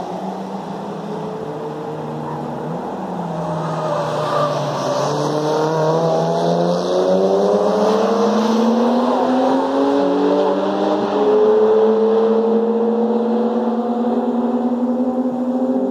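Several race cars' engines running at once on the track, their pitches climbing slowly as they accelerate. About two-thirds of the way through, one engine's note drops as a car lifts off or shifts, and the sound is loudest just after that.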